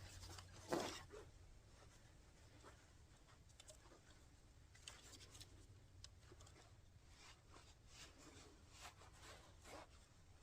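Near silence with faint scattered clicks and rustles of handling, one louder click and rustle just under a second in.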